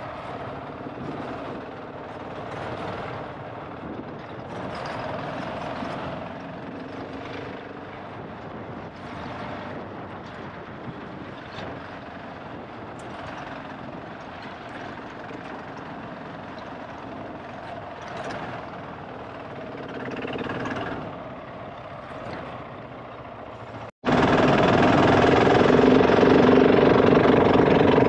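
GasGas ES700's single-cylinder four-stroke engine running as the bike is ridden, the revs swelling and easing repeatedly. About 24 seconds in the sound cuts abruptly to a much louder, steadier engine note.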